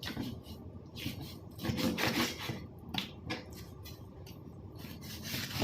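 Irregular rubbing and scraping strokes from hands-on kitchen food preparation, with the busiest cluster about two seconds in and a few shorter strokes after.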